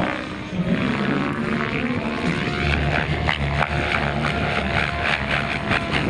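Electric Minicopter Diabolo RC helicopter's rotor blades and motor running in aerobatic flight, the pitch rising and falling as it manoeuvres, with a repeated blade chop in the second half. Wind rumbles on the microphone.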